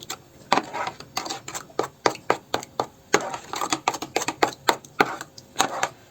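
A utensil stirring kefir with baking soda, salt and sugar in a bowl, knocking against the bowl's sides in quick, irregular clicks, about three to four a second.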